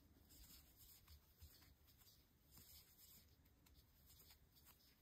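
Near silence, with faint rustling and small ticks of yarn being drawn through stitches by a metal crochet hook.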